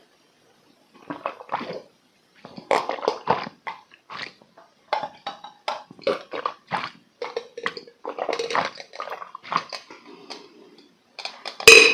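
A man gulping down a large glass of orange-flavoured yogurt drink in one go, close to the microphone: a run of wet swallows about two a second, starting about a second in. A louder sudden sound comes near the end.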